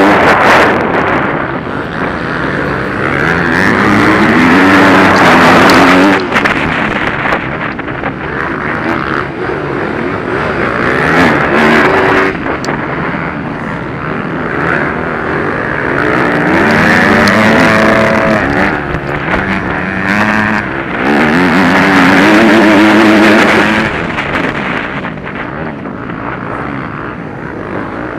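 Motocross motorcycle engine heard through the bike's onboard camera, racing on a dirt track. It revs up and drops back several times as the rider accelerates, shifts and backs off for corners, over a constant rush of noise.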